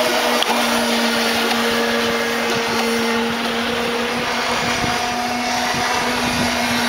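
Radio-controlled model powerboat running flat out across the water, its small motor giving a steady high-pitched whine that holds one pitch.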